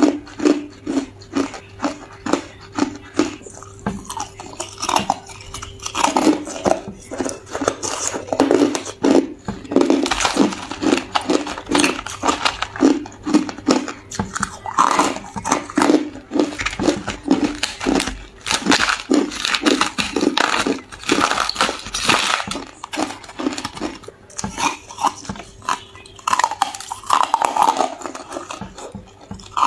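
Chunks of hard ice bitten and crunched between the teeth, close to the microphone: a dense run of sharp cracks and crunches with brief lulls.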